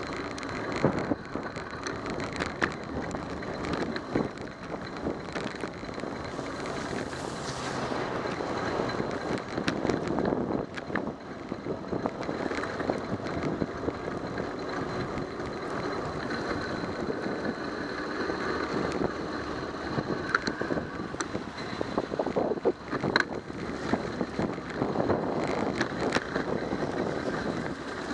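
Bicycle riding on rain-wet city pavement: a steady hiss of tyres on the wet road with wind on the microphone, and scattered clicks and rattles as the bike goes over bumps.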